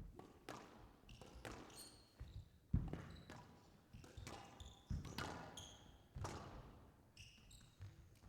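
A squash rally: the ball struck by rackets and smacking off the court walls in sharp knocks, roughly every half second to a second, with short high squeaks of shoes on the court floor between them.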